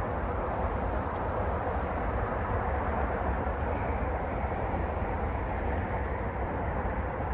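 Steady car driving noise: a continuous low rumble with road and tyre hiss, unbroken throughout.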